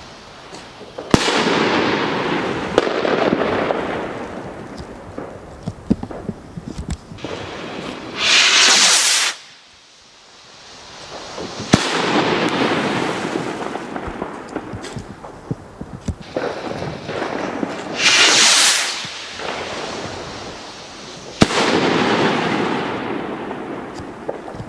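2-inch shell rockets launching and bursting. There are three sharp bangs of the shells bursting, about a second in, about twelve seconds in and near the end. Each trails off into a long, fading tail of scattered pops. A rocket's rushing hiss as it climbs, about a second long, comes a few seconds before each of the later bangs.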